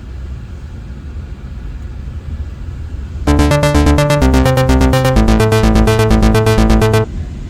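Electronic music with a steady thumping beat and synth chords, coming in about three seconds in and cutting off abruptly near the end. Before and after it there is only a low, steady noise.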